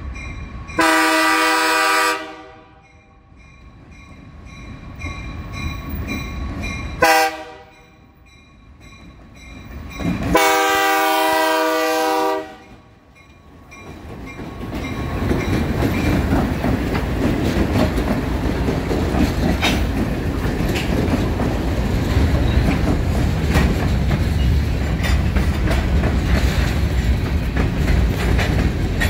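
Diesel freight locomotive's multi-tone air horn sounding a long, a short and a long blast at a level crossing, with the crossing bell ringing underneath. From about halfway through, the locomotive and a string of covered hopper cars pass close by, a steady rumble with wheels clattering over the rail joints.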